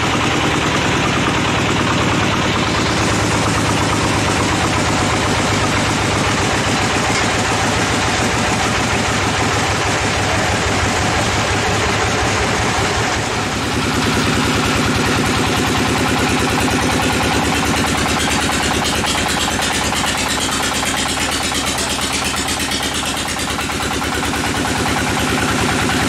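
Band sawmill machinery running steadily: an engine's drone with a fast, even beat, changing in tone about halfway through.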